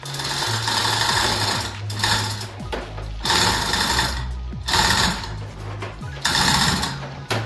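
Rapid mechanical rattling in several bursts of a second or so, with short pauses between, over a steady low hum.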